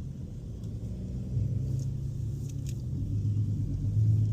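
Car engine and road noise droning inside the cabin. The hum grows louder about a second and a half in and again near the end.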